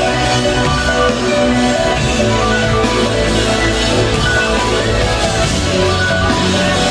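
Live rock band playing loudly, with drums, guitar and bass, heard from among the audience.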